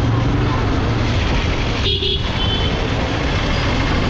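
Motorcycle engine running under way, with steady road and wind noise in traffic. A vehicle horn toots once, briefly, about halfway through.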